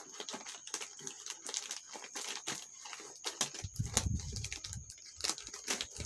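Plastic courier pouches and cardboard box flaps rustling and crinkling as they are handled, with many small crackles and clicks and a few duller bumps against the box. A faint steady high-pitched whine runs underneath.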